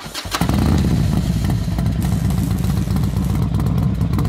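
A motorcycle engine running steadily at idle; it comes in loudly about half a second in, after a few short clicks.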